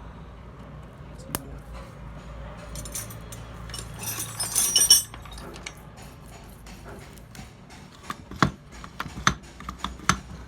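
Metal parts and hand tools clinking and tapping during starter-motor repair work: scattered sharp clicks, a harsh scraping burst about a second long near the middle that is the loudest sound, then a quick run of sharp metallic knocks near the end, over a low steady hum.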